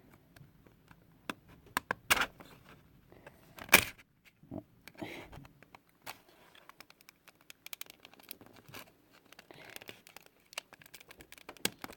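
Plastic disk casing being pried open: scattered clicks, creaks and scrapes of plastic, with the loudest sharp snaps about two and four seconds in. The shell is stiff and resists opening.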